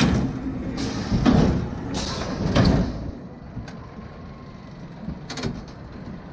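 Small steel family roller coaster train (an E&F Miler Hi-Miler) rolling into the station and braking. Its wheels rumble on the track, with three brief hissing bursts, and the rumble dies away about three seconds in as the train comes to a stop. A few light knocks and clicks follow.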